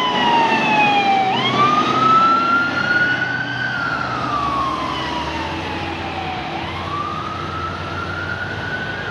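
Emergency vehicle siren on a slow wail, its pitch sliding down over a few seconds and then sweeping back up, about two full cycles, over the low rumble of the vehicle's engine and road noise. It fades slightly toward the end.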